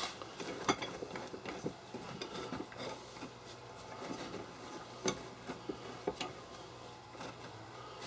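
Scattered light clicks, knocks and rubbing as a clamp is handled and fitted against the wooden tool chest, with a faint steady hum underneath.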